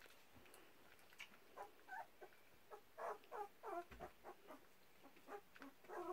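Still-toothless collie puppy eating from a hand: soft licking and smacking, with a run of small squeaky noises from the second second through the middle.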